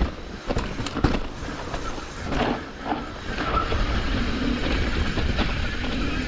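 Hardtail mountain bike rolling fast over rough trail: tyres rumbling on dirt, with a steady clatter of irregular knocks and rattles from the chain and frame.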